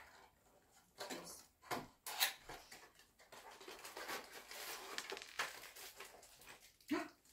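Cardboard parts box and packaging being handled and opened: a few short taps and scrapes in the first couple of seconds, then soft rustling from about three and a half seconds in until just before the end.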